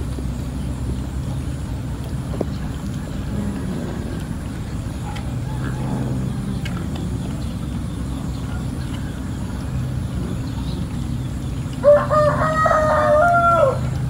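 A rooster crowing once near the end, a call of under two seconds in a few stepped pitches, over a steady low background hum.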